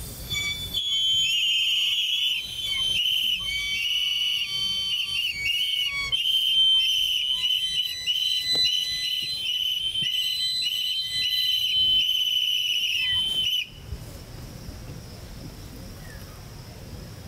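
Several small hand-held whistles blown together: one high, steady whistle held under a run of shorter, repeated toots, with other tones coming and going. It starts just under a second in and cuts off suddenly about three-quarters of the way through.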